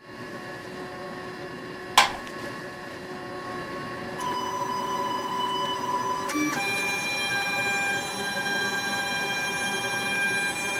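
LulzBot Mini 3D printer running, its stepper motors whining in several steady tones that shift to new pitches as its moves change, with one sharp click about two seconds in.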